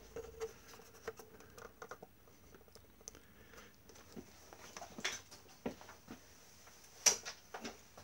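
Handling noise from an old Hoover Senior upright vacuum cleaner being carried and stood on the floor, with scattered light clicks and knocks. The loudest is a sharp knock about seven seconds in.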